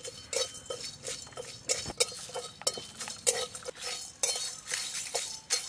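Metal spatula scraping and clinking against the inside of an aluminium karahi, stirring whole spices (bay leaves, cumin seeds, black peppercorns) as they roast. The strokes come about two or three a second.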